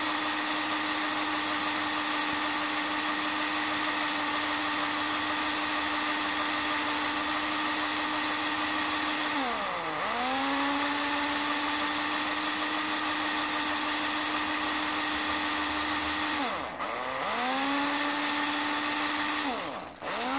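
Electric drill running steadily with a 2 mm bit, drilling into the back of a Lockwood 245 padlock body to reach the shackle retainer pin. Its speed dips and picks up again twice, then it winds down and stops near the end.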